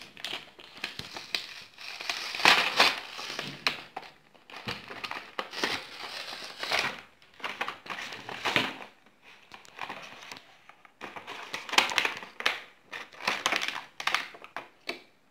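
Crinkling and rustling of a fuse-bead kit's plastic packaging as it is opened and handled, in irregular bursts, with loose plastic beads shifting and clicking.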